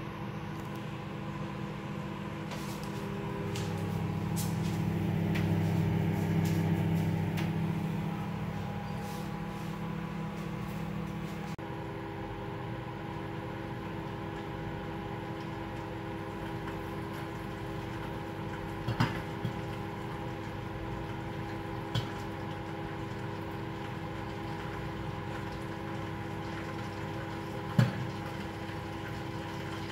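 Scandomestic microwave oven running: a steady hum from its fan and motor. The deeper part of the hum drops away about a third of the way in. A few sharp clicks come in the second half, three in all.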